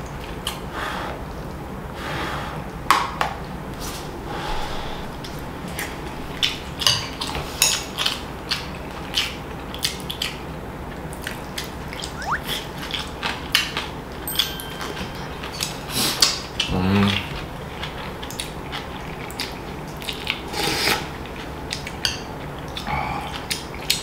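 Metal spoon and chopsticks clicking irregularly against a ceramic bowl and a plastic container lid while someone eats soup, with a dull knock on the table about two-thirds of the way through.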